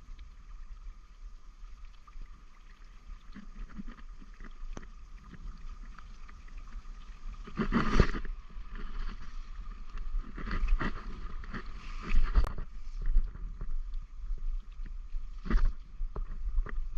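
Creek water running steadily, with a few louder sudden splashes or knocks about eight seconds in and again between ten and sixteen seconds in.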